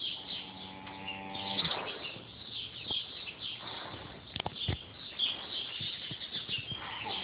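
A sleeping pet snoring: one long, buzzing snore in the first second and a half. Faint high chirping runs throughout, and a couple of sharp clicks come about four and a half seconds in.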